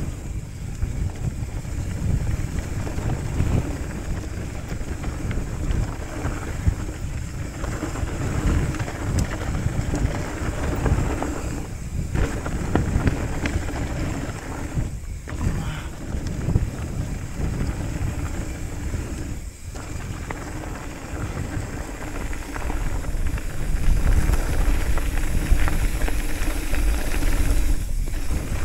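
Wind rushing over the microphone and the tyres of a hardtail mountain bike rumbling over a dirt trail on a fast downhill, a steady low rumble with a few brief lulls.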